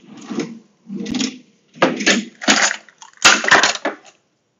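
Someone rummaging in a low kitchen cupboard: items rattle and clatter in about five short bursts, with a few sharp knocks.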